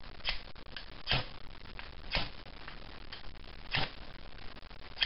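A new ferrocerium fire steel scraped along the square spine of a stainless steel bushcraft knife: short, sharp scrapes roughly once a second, five in all. The first strikes are taking the black coating off the new rod.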